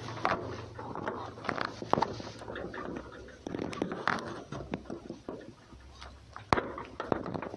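Irregular light scrapes and knocks on a wooden board, with one sharper knock about six and a half seconds in.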